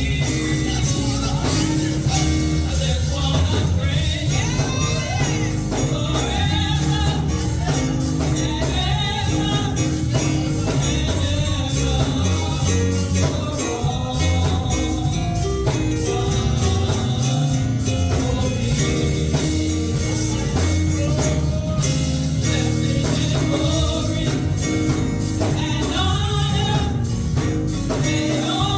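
Gospel music with singing over a band, with a steady beat.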